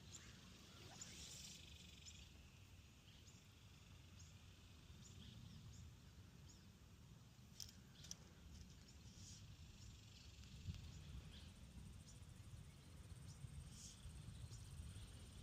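Faint outdoor ambience: a low, steady rumble with scattered faint, short high chirps and ticks.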